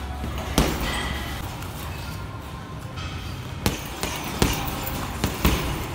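Boxing gloves striking a Twins Special heavy bag: one punch about half a second in, then a quick run of four or five punches in the second half.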